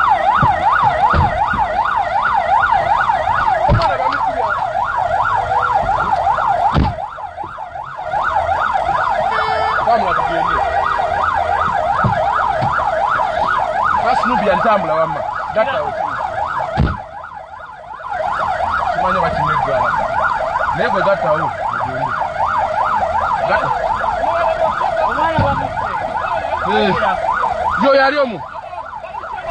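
Fast warbling siren, its pitch swinging up and down several times a second. It drops out briefly three times.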